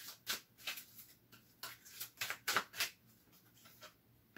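A deck of oracle cards being shuffled by hand: a quick run of short card-on-card strokes, about three or four a second, stopping about three seconds in.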